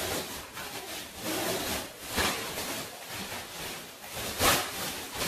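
Fabric carry bag sliding off a folded camping chair, the cloth rubbing and rustling in several swishes, the loudest about four and a half seconds in.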